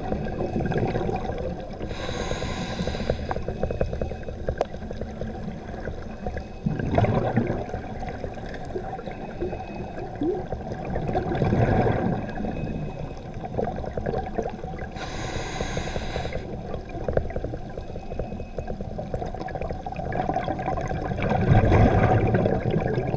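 A scuba diver breathing through a regulator, heard underwater over a steady low rushing. Exhaled air bubbles out in three louder bubbling swells, and two brief high hisses of inhaled air come between them.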